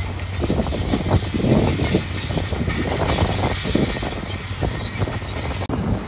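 Dump trucks idling with their beds tipped up while loads of dirt and rock slide out, an irregular rumbling clatter of soil and stones pouring onto the ground over the low engine hum. The sound changes abruptly near the end.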